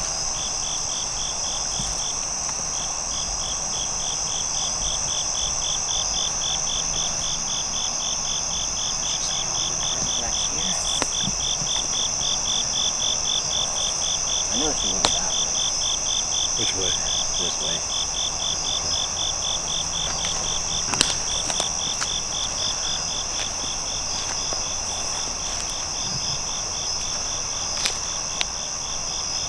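Night insect chorus: one insect trilling steadily at a high pitch, with another chirping in a fast, even pulse beneath it, and a few sharp clicks.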